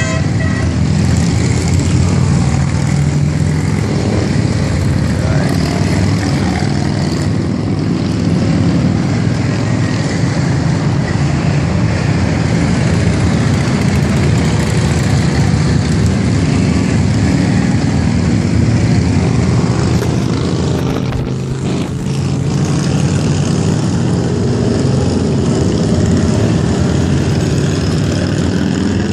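A stream of cruiser motorcycles riding past, mixed with a few cars, their engines running loudly and steadily, with a short lull a little past three quarters of the way through.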